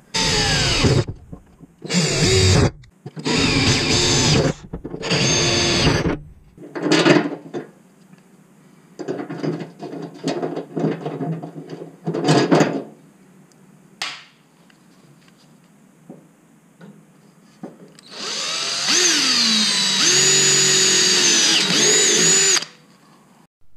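A 20-volt cordless drill boring through the plastic go-kart tub: four short bursts in the first six seconds, then a longer run of three to four seconds near the end, its motor pitch rising and falling as the trigger is worked. Light clicks and knocks of hands and parts being handled come in between.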